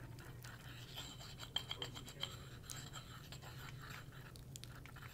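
Ceramic pestle scraping and stirring in a ceramic mortar, working ketoprofen powder and ethoxydiglycol solvent into a thick paste. Faint, with light scratchy scrapes and a few small clicks.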